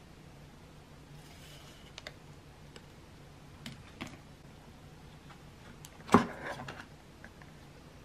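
Apple Watch paper packaging being handled: a few light clicks and taps, then a sharp snap about six seconds in as the charging-cable holder is pulled from the molded tray, followed by a brief rustle.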